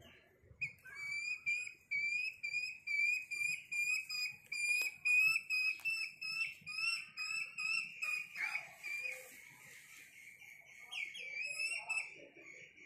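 Young junglefowl calling: a steady run of high, clear, whistle-like chirps, about two a second. The calls thin out after about nine seconds, then a few quicker notes come near the end.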